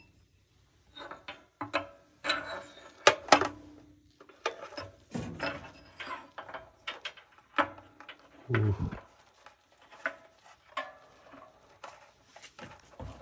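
Irregular metallic clinks and knocks of hand tools and the new anode rod being fitted into the water heater's port.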